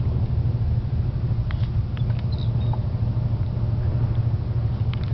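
Steady low rumble of a vehicle's engine and road noise, heard from inside the cabin, with a few faint light clicks a second or two in.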